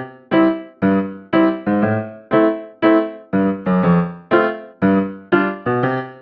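Background keyboard music: a simple melody of single struck notes, about two a second, each fading after it is played.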